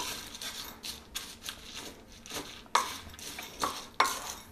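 Wooden spatula stirring dry-roasted chana dal and other lentils in a glass bowl: irregular clicks and rattles of the dry grains and the spatula against the glass.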